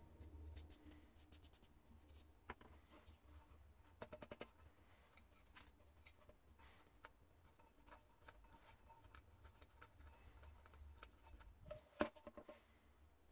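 Faint clicks and taps of the small metal parts of an old bicycle lamp being handled and taken apart by hand, over a low hum. There is a quick run of rattling clicks about four seconds in, and the sharpest click comes near the end as a small knurled nut is worked off the top of the lamp.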